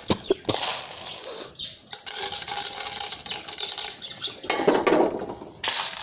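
Popcorn kernels dropped by hand into hot oil in an aluminium pressure cooker: a few sharp clicks as they land, then a steady crackling sizzle, briefly louder about five seconds in.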